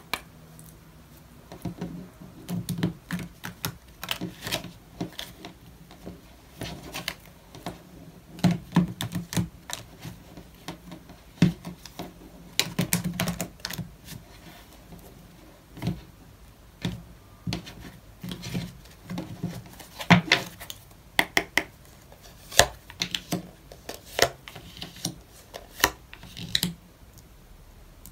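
A deck of tarot cards being shuffled by hand, a run of irregular clicks and short flutters, with cards laid down on the tabletop near the end.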